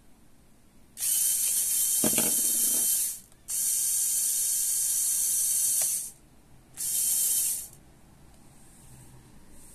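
Small LEGO electric motor driving a geared claw mechanism, whirring in three runs of about two seconds, two and a half seconds and under a second. A thump about two seconds in as the gripped rubber wheel drops onto the table.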